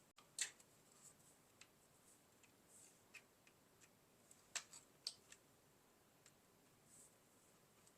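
Faint, scattered clicks and light taps of plastic parts and wire being handled inside a Roomba i7 while a wire is worked under a clip, with a small cluster of clicks about halfway through.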